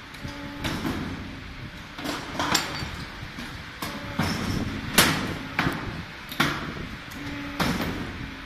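Automatic R-pin wire-forming machine running its cycle: the wire-feed and pneumatic forming slides and dies clack sharply every second or so in an uneven repeating pattern, with brief low hums between strokes.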